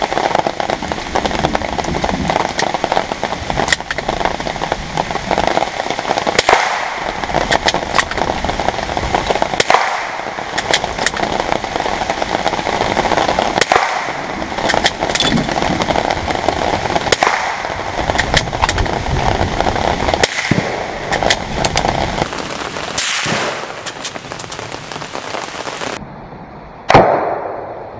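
Rain falling steadily on the canopy overhead, broken by several rifle shots a few seconds apart. Near the end a single loud blast: an exploding target going off.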